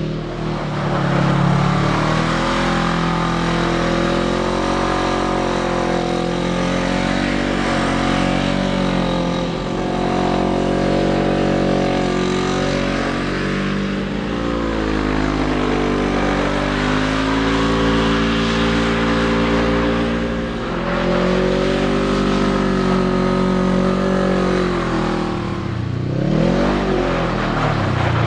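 Polaris RZR 900 side-by-side's parallel-twin engine revving hard while the vehicle slides on snow, its pitch rising and falling over and over as the throttle is worked. There are deeper dips about halfway through and again near the end.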